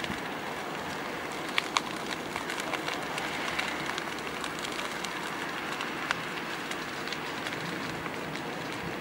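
Grass and brush fire burning: a steady rushing noise full of frequent sharp crackles and pops, with two loud pops close together about a second and a half in and another about six seconds in.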